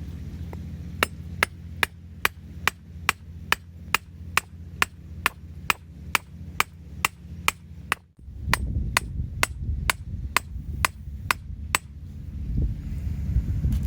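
Hammer tapping stainless steel wire against a hard surface to shape it: a long, even run of sharp metallic strikes, about two a second, that stops near the end. A low rumble of wind or surf runs underneath.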